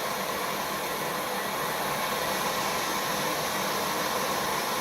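Plumber's gas torch flame burning with a steady hiss, heating a copper pipe joint on a shower valve to the solder's melting point so the solder flows all the way around.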